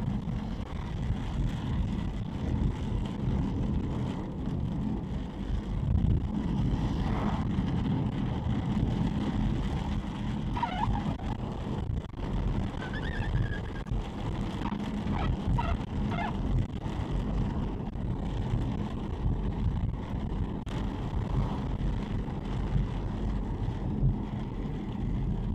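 Car driving on a wet road, heard from inside the cabin: a steady low rumble of engine and tyres on wet tarmac. A few brief, faint higher squeaks come in the middle.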